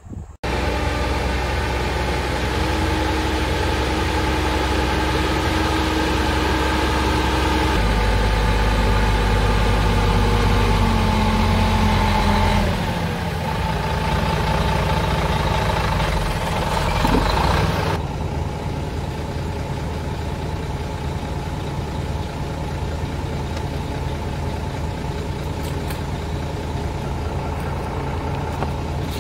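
Heavy diesel engine running, heard in several abrupt cuts: the engine speed shifts and slides down in the first half, then holds a steady drone for the last ten seconds.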